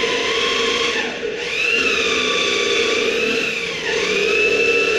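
Power drill running into a narra wood table frame, its motor whine sagging in pitch and briefly stopping about a second in, sagging again near four seconds, then speeding back up.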